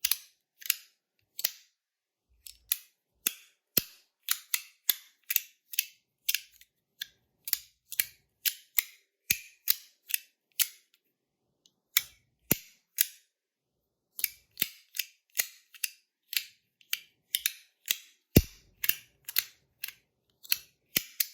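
Titanium V1.1 free-floating slider fidget being slid back and forth by hand, its plates snapping with sharp metallic clicks about two to three times a second, with a few brief pauses.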